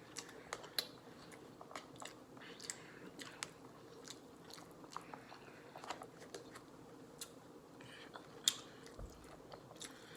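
Close-up eating sounds of spicy instant noodles: irregular mouth clicks, slurps and chewing smacks. The loudest click comes about eight and a half seconds in.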